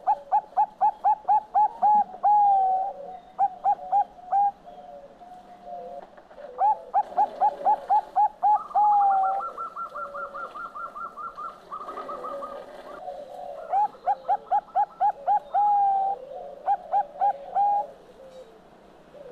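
Zebra dove (Bangkok perkutut) singing: three bouts of rapid, staccato coos, each ending in a longer drawn-out note and followed by a short group of coos. Between the second and third bouts a faster, higher-pitched trill runs for about four seconds.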